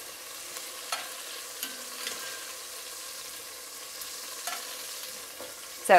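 Marinated chicken pieces sizzling steadily in hot olive oil in a steel pan as they are stirred, with a few light clicks of the utensil against the pan.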